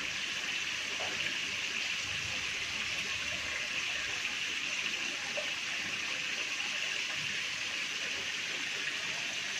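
Steady splashing of water pouring from inlet pipes into fish tanks of a recirculating aquaculture system.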